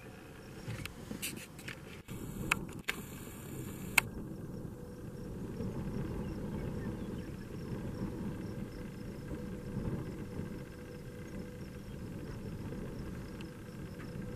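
Steady low rumble of wind and vehicle noise around a handheld camera. A handful of sharp clicks and knocks fall in the first four seconds, the last one the loudest, as the camera is handled.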